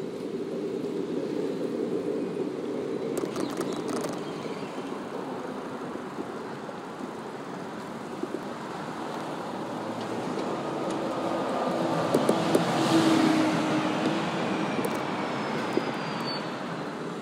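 Road traffic on a multi-lane city street, cars driving past. One vehicle passes loudest about twelve to fourteen seconds in, rising and then fading, and a few sharp clicks come about three seconds in.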